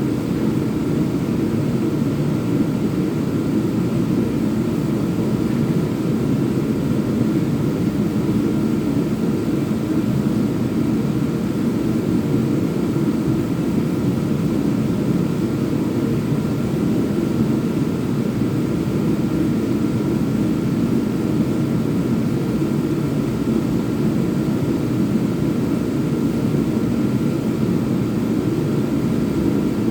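Power sander running steadily, a continuous even hum with no pauses.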